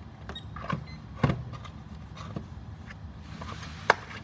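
Handling noises on a workbench as a charger is picked up and set aside and a cable is laid out: a few separate knocks and clicks, the loudest a thud about a second in and a sharp click near the end, with a brief rustle just before that click.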